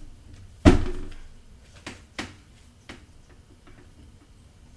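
Tarot cards handled on a table: one loud slap or knock about half a second in, then several lighter clicks and taps.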